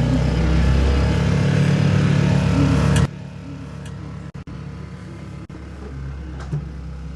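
Sailboat's auxiliary engine running steadily as the boat motors off, a low even hum. It drops abruptly in loudness about three seconds in and carries on quieter.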